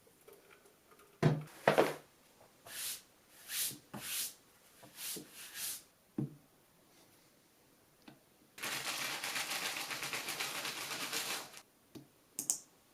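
Fast typing on the SP-111 mechanical keyboard, whose Roselios silent linear switches are lubed with Krytox 105, for about three seconds in the second half. Before it come a couple of sharp knocks and several soft swishing sounds.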